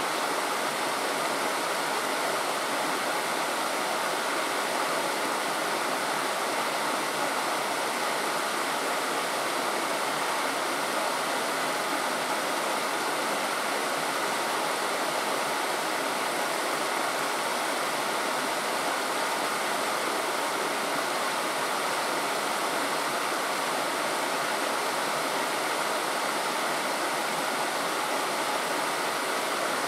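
Steady rushing of a stream: an even, unbroken wash of water noise.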